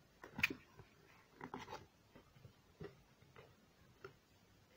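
Scored cardboard being bent and handled: a few scattered short crackles and taps, the sharpest about half a second in.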